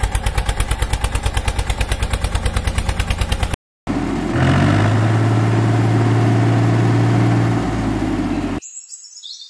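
Tractor engine sounds: a fast, even chugging for about three and a half seconds, then after a brief break a steadier, smoother engine running that drops away about a second before the end.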